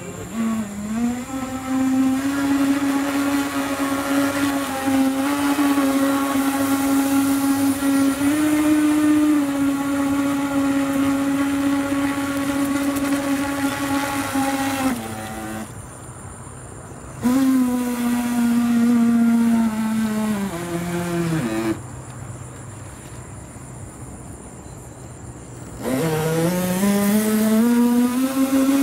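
Electric motor and water-jet drive of a radio-controlled NQD toy jet ski whining under throttle, holding a steady pitch for most of the first half. About halfway through it cuts out, comes back briefly and winds down in pitch, then spins up again with a rising whine near the end.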